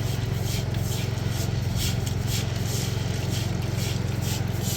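A steady low mechanical hum, like a motor running, with a series of short scraping strokes over it, roughly two a second.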